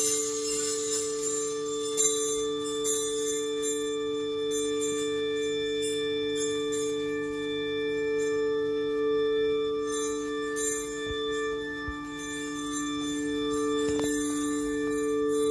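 Music: a drone of two low tones held steady, with a jingling, bell-like shimmer above that swells and fades.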